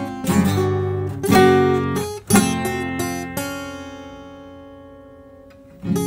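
Acoustic guitar playing strummed chords, with no singing. After a few strums, one chord is left to ring and fade out for a couple of seconds before the next strum comes in near the end.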